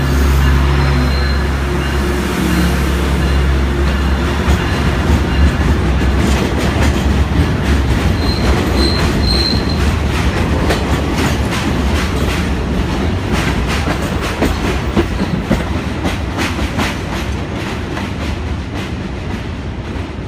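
A diesel work train passing close: an MPI MP8AC-3 diesel locomotive's engine hums for the first few seconds. Ballast cars then roll by, their wheels clattering over the rail joints, with a brief wheel squeal partway through. The sound fades toward the end as the train moves away.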